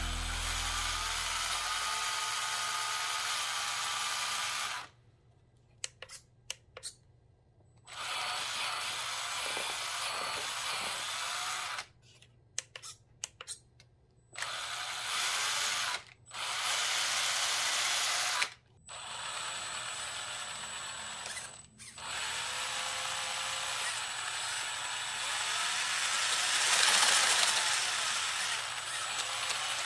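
Brushed 550 electric motor and geared transmission of a 1/10-scale RC crawler whirring as its wheels spin freely off the ground. It stops and restarts several times, with a few light clicks in the pauses, and runs loudest near the end.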